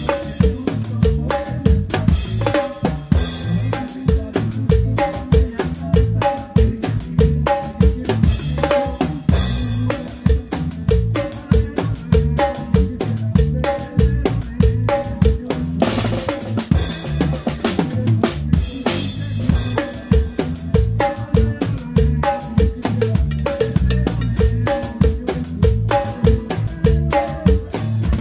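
A drum kit played live with sticks in a steady, busy dance beat of kick, snare and cymbal hits. The rest of a norteño band plays underneath.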